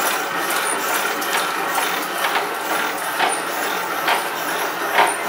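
Pedals of a gym cardio machine being worked: a steady mechanical whirr with a knock about once a second from each stride.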